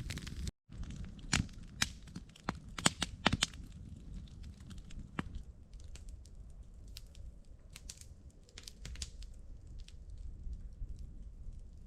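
Campfire of burning wood crackling, with sharp pops that come thickly in the first few seconds and more sparsely after. The sound drops out briefly about half a second in.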